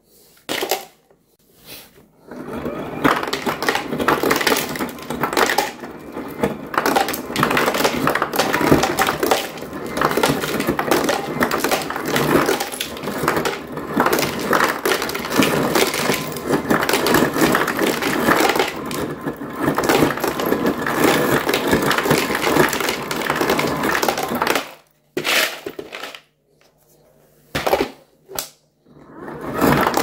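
LG LHSXS2706S side-by-side refrigerator's door ice dispenser running on crushed ice: the crusher grinding and ice chips clattering into a plastic measuring bowl in a dense, continuous rattle. It starts about two seconds in and stops about 25 seconds in, followed by two short bursts, then starts again just before the end.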